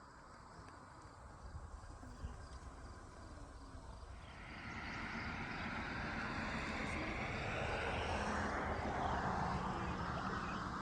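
A vehicle approaching and passing: a faint background swells from about four seconds in into a louder rushing noise that drops slightly in pitch near the end.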